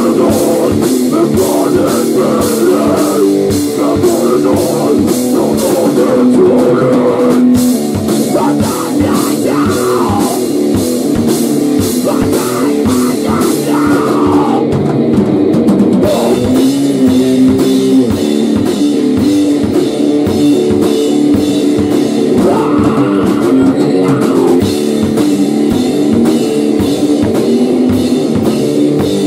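Rock band playing loudly: drum kit and electric guitar, with a fast, even drum beat.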